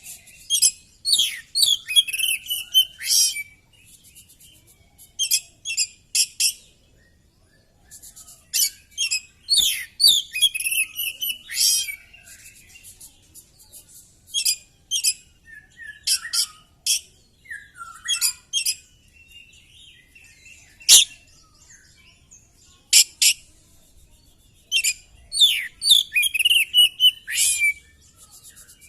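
Oriental magpie-robin singing in full voice: bursts of high rapid trills and sweeping whistled notes, with short pauses between phrases.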